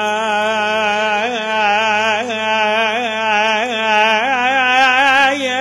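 A man's voice holding one long melismatic note of a Kurdish song, the pitch wavering in quick ornaments throughout, with violin accompaniment.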